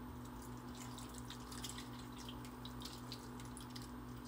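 Thick marinade poured from a bowl onto raw beef in a stainless steel pot: faint wet splatters and drips. A steady low hum runs underneath.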